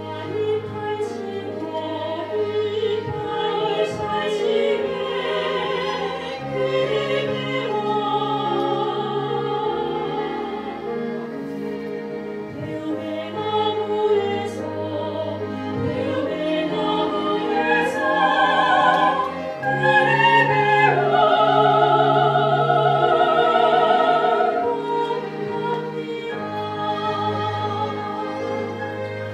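Classical-style female singing with vibrato, accompanied by a small string ensemble of violins and cellos. The voices swell to their loudest about two-thirds of the way through, then ease back.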